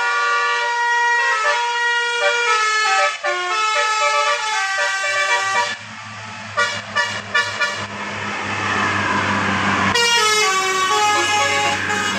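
Bus telolet horn, a multi-tone musical horn playing a tune of quick stepped notes, then a few short sharp toots about six seconds in. It follows with a sliding siren-like wail and a falling run of notes near the end, over a low steady hum.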